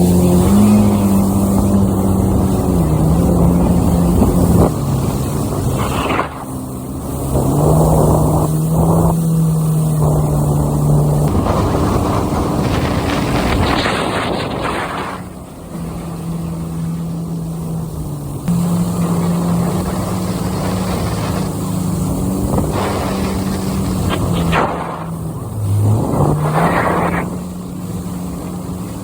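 Watercraft engine running under way, its pitch rising and falling several times as the throttle changes, with a few short rushing surges of noise.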